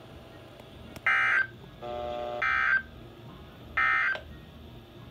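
Emergency Alert System end-of-message data bursts on NOAA Weather Radio: three short buzzy bursts about 1.3 s apart, each lasting under half a second, marking the end of a severe thunderstorm watch message. A lower steady tone sounds for about half a second just before the second burst.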